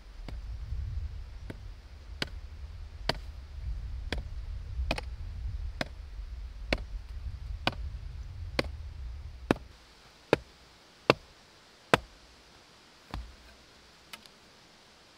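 Wooden mallet striking the top of a stake, driving it into the ground: sharp knocks about once a second. A low rumble sits under the first two-thirds and then drops away, leaving the last knocks standing out clearly.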